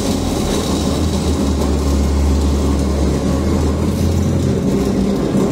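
Kaltenbach KKS 450 H semi-automatic metal-cutting saw running with a steady low drone.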